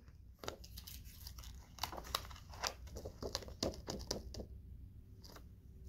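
Faint crinkling and scattered light ticks of a laminated picture sheet being handled as a cut-out picture piece is pressed onto it.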